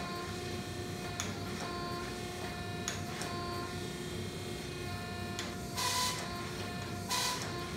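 Hydraulic forge press running steadily with a whining hum while it squeezes a hot steel bar between its flat dies, with two short hissing rushes near the end.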